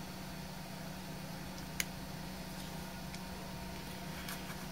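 Steady low electrical hum and hiss, with one sharp small click about two seconds in and a couple of fainter ticks later, from hands handling and prying at the plastic case of a small action camera.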